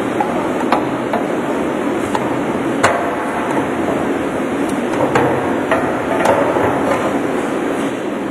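Meat-processing machinery, a Stephan Microcut and Ruehle mixer, running in a loud, steady din, with irregular sharp metallic knocks as ground meat is tipped from the mixer bowl into the stainless-steel hopper.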